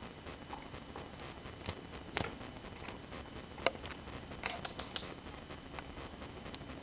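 Border Collie chewing and gnawing on a plush elephant toy: soft, irregular chewing with scattered sharp little clicks, the loudest a little over halfway through.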